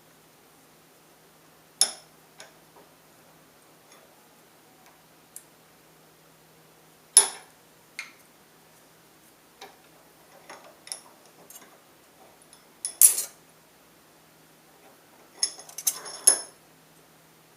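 Scattered sharp metallic clicks and clinks of a nail and a strip of tin-can metal being handled and set in a bench vise, the loudest about seven and thirteen seconds in, with a quick run of clinks near the end.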